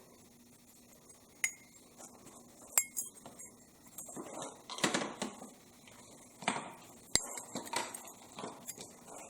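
Metal parts from a torn-down 383 small-block Chevy being handled: a few sharp metallic clinks with short spells of scraping and rustling between them.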